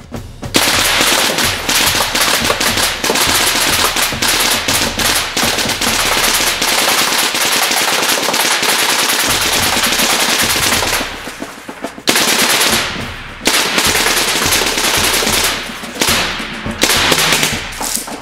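SMG 22 belt-fed .22 pellet gun firing full auto at lit glass light bulbs, breaking them. One long burst of about ten seconds starts about half a second in, and after a short pause come several shorter bursts.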